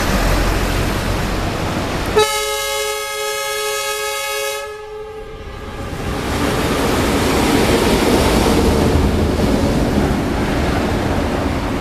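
A DF4 (Dongfeng 4) diesel-electric locomotive sounds its horn in one blast of about two and a half seconds, starting about two seconds in. Its running noise then grows louder as it passes close by.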